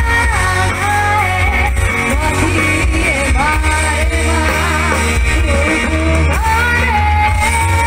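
Loud pop music with a sung melody over a heavy, steady bass line.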